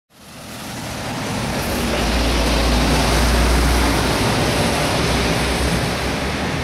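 Road traffic noise with a low rumble, fading in from silence over the first couple of seconds and then holding steady.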